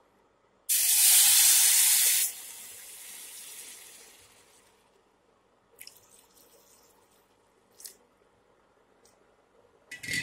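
Milk poured into a hot pan of oil-roasted vermicelli, sizzling loudly about a second in for a second and a half, then dying away over the next few seconds. A few light clicks follow, and there is a short knock near the end.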